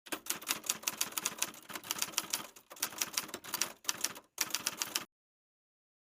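Rapid typing keystrokes: a dense clatter of sharp key clicks with two brief breaks, the second just past four seconds in, stopping abruptly about five seconds in.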